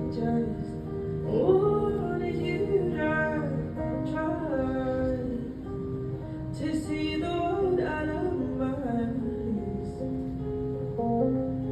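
A woman singing wordless, gliding melodic runs over held guitar chords. The voice drops out about nine seconds in, leaving the accompaniment.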